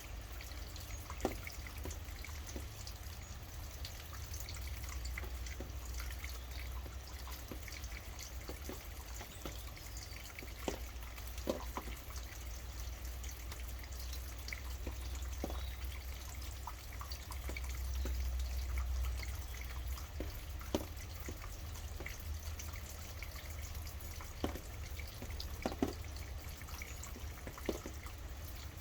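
Steady rain with scattered louder drips landing every second or few seconds, over a steady low rumble.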